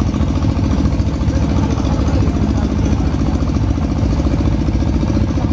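Tractor engine running steadily with a fast, even beat while it pulls a loaded passenger trailer along a dirt road, heard from the trailer behind it.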